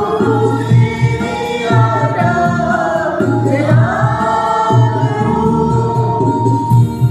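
A small group of men and women singing a devotional prayer song together in long held notes, over a steady rhythmic instrumental accompaniment.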